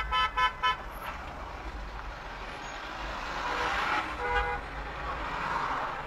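Car horn honking in four quick short toots, then a second, shorter horn blast about four seconds later, over the noise of slow, congested traffic.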